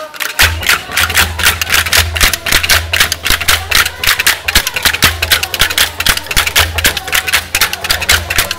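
A group of women clapping hands in a fast, steady rhythm, with singing faint beneath the claps.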